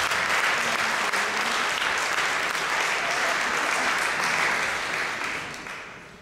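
Audience applauding steadily, the clapping fading out over the last second or so.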